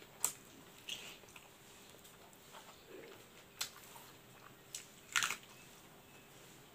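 Close-up eating sounds: chewing with a handful of sharp, wet mouth clicks and smacks as smoked pork with rice and a king chili are bitten and chewed.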